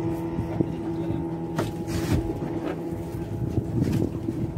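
A boat engine running steadily at an even pitch, with a couple of brief knocks or splashes near the middle.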